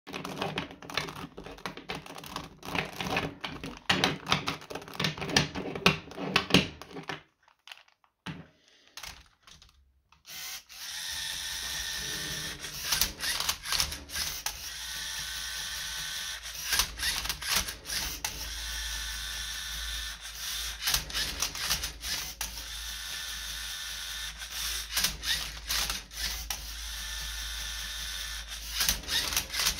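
A Rubik's cube clicking quickly as it is turned by hand, for about the first seven seconds. After a short pause, a LEGO Mindstorms EV3 MindCuber robot runs: its motors whir steadily while the cube clacks as the robot flips and turns it.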